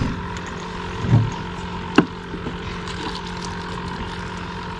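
A steady mechanical hum runs underneath a few handling noises in the boat: a soft knock about a second in, a sharp click at about two seconds, and another knock near the end as the minnow bucket and dip net are handled.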